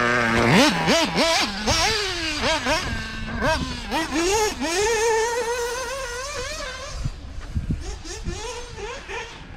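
Mugen MBX7R 1/8 buggy's 3.5 cc Ultimate M5 nitro engine revving hard, its pitch shooting up and down in quick blips as the throttle is worked, then holding a higher steady note before fading as the buggy moves away.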